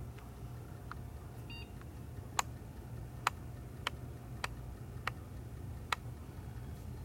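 Packard Bell Platinum 1 PC booting: one short beep, then six sharp clicks spaced over about three and a half seconds as the machine looks for a bootable disk, over a steady low hum.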